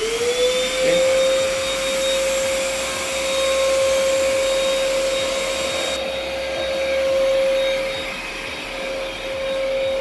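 Denpoo HR-8003 vacuum cleaner switched on, its motor whine rising quickly in pitch as it spins up, then running at a steady high whine over rushing air as the floor nozzle sucks at a coarse-pile carpet.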